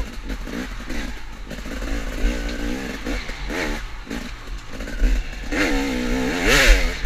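KTM off-road motorcycle engine revving up and down as the throttle is worked hard, with the revs climbing highest near the end. There is clatter and thumping from the bike going over rough ground.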